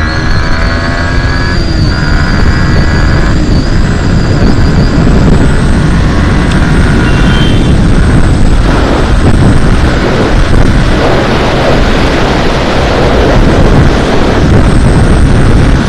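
Yamaha MT-15 single-cylinder engine under hard acceleration, shifting up through the gears with brief breaks in the engine note about two and three seconds in, under heavy wind rush over the microphone. As the speed climbs, the wind noise grows to drown out most of the engine.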